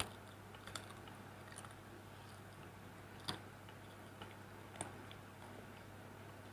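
Faint crunchy chewing of fried chicken skin, heard as a few soft, scattered crunches and clicks, over a steady low hum.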